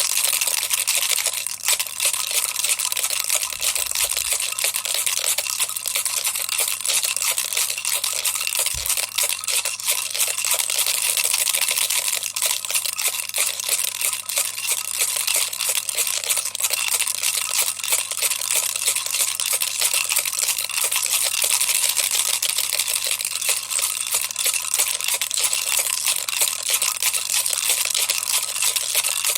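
Baby's toy rattle shaken continuously: a dense, steady, high-pitched clatter of many small clicks.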